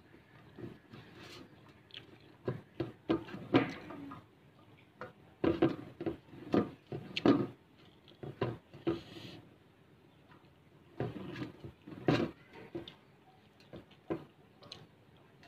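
Eating rice by hand from a steel plate: irregular clusters of short wet clicks and smacks from chewing and from fingers working the rice against the plate.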